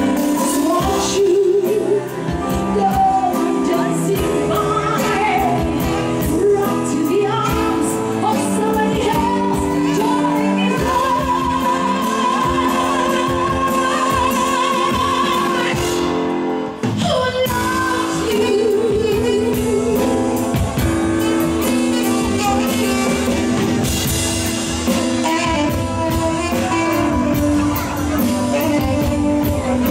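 Live band music with a singer holding long, wavering notes over keyboard and backing instruments, with a short break about halfway through.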